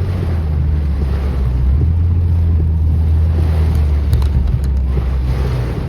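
Car driving, a steady low rumble of road and engine noise with a few faint clicks about four seconds in.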